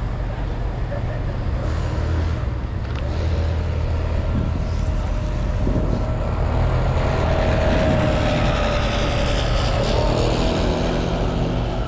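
City street traffic on wet pavement: a low steady rumble of engines, with the hiss of a vehicle's tyres on the wet road swelling past through the middle and easing off near the end.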